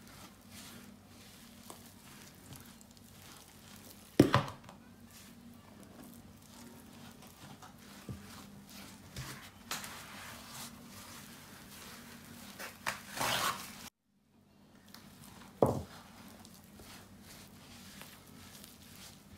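A hand squeezing and mixing soft, crumbly shortbread dough in a bowl: faint squishing, with a longer rustle about 13 seconds in. Two sudden knocks, about four seconds in and near 16 seconds, are the loudest sounds, over a faint steady hum.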